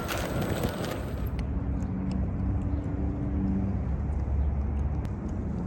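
Veteran Abrams electric unicycle being ridden. Wind noise for about the first second, then a steady low road and motor rumble with a faint hum and a few faint, sharp knocks: a knock from the wheel's shell that sounds when the rider pushes against it.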